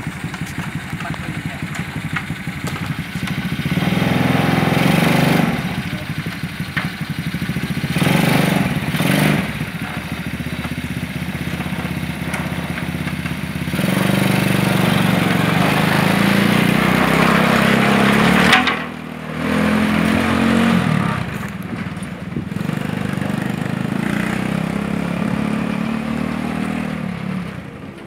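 Lifan 110cc single-cylinder four-stroke motorcycle engine in a homemade utility buggy, running and revving up in several surges as the buggy drives off. The engine drops off briefly about two-thirds of the way through, then picks up again and grows fainter near the end as the buggy moves away.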